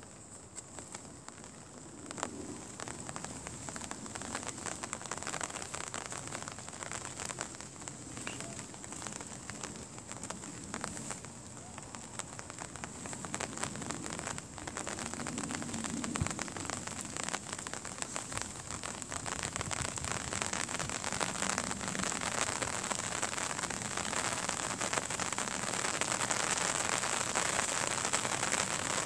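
Rain pattering as a dense crackle of drops, growing louder toward the end.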